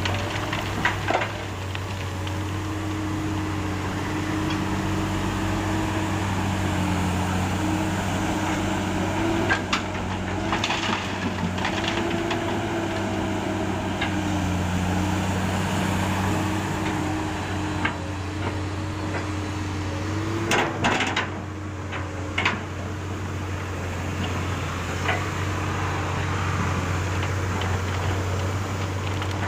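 Komatsu PC200 hydraulic excavator's diesel engine running steadily under load, its pitch rising and falling every few seconds as the hydraulics work. A few sharp metallic clanks and knocks come through, a pair about a third of the way in and a louder cluster about two-thirds in.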